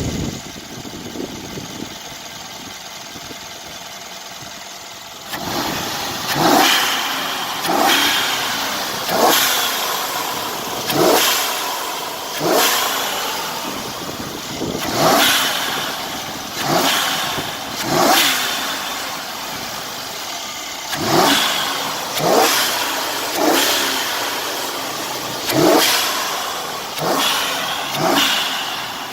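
Mercedes-Benz E550 twin-turbo V8, tuned with downpipes and custom blow-off valves, idling steadily for about five seconds and then revved in about fourteen quick blips. Each blip falls away as the blow-off valves vent.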